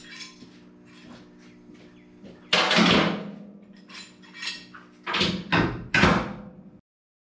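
Steel clamps clanking and scraping on the steel flatbed and side as they are laid down and clamped on, with loud knocks about two and a half, five and six seconds in, over a steady low hum. The sound cuts off suddenly near the end.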